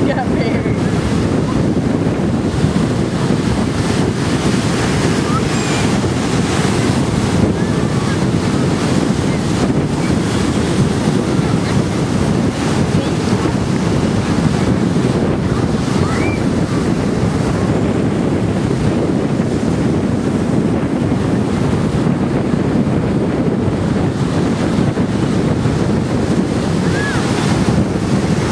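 Ocean surf breaking and washing up the beach, steady and unbroken, with wind buffeting the microphone.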